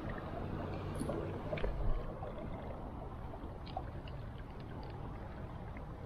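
Steady rush of flowing river water, with a handling knock about two seconds in and a few faint, scattered ticks.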